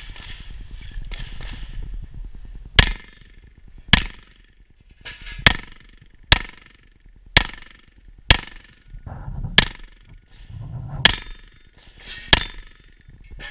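STI Trojan .38 Super single-stack pistol firing about ten single shots, roughly a second apart, each with a short echo, as the shooter works through a stage.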